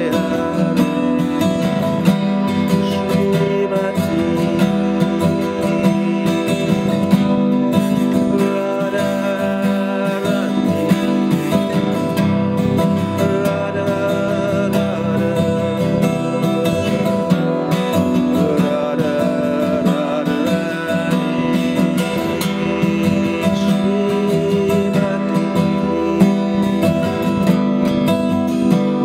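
Steel-string acoustic guitar strummed steadily, chords ringing without a break.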